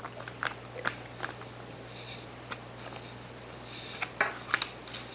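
A foil retort pouch being emptied of beef-and-bean stew into a bowl: a few soft wet smacks and clicks, then crinkling and sharp ticks of the foil as the empty pouch is handled near the end.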